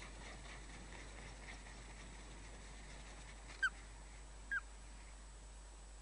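Ospreys chirping at the nest: faint chirps in the first second or so, then two short, louder chirps about a second apart, over a steady hiss.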